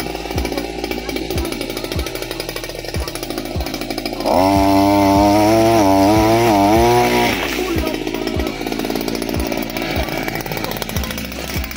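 Small two-stroke engine of a Cantas motorized pole harvester running. About four seconds in it is throttled up for some three seconds, its pitch dipping and recovering before it drops back. Background music with a steady beat plays throughout.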